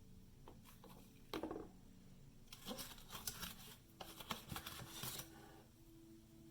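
Faint handling noise: light clicks and rustling scrapes in a short cluster around the middle.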